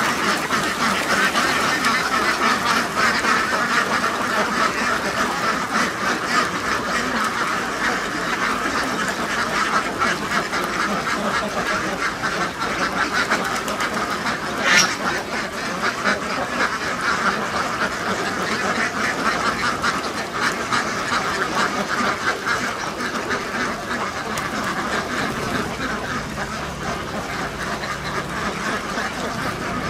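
Large flock of domestic ducks quacking continuously, many calls overlapping into a dense chatter. One sound stands out louder about halfway through.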